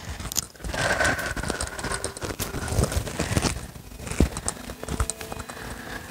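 Rustling and scattered light knocks and crinkles of a person settling onto a yoga mat: bare feet and knees on the mat, clothing brushing, and small objects being handled.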